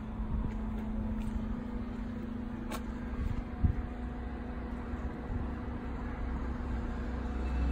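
Steady low hum and rumble of street traffic, with a sharp click a little before three seconds in and a short thump just after three and a half seconds.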